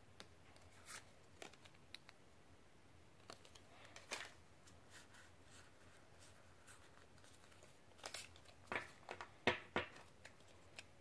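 Faint clicks and rustles of Pokémon trading cards being handled and slid between the hands, with a run of louder card snaps about eight to ten seconds in.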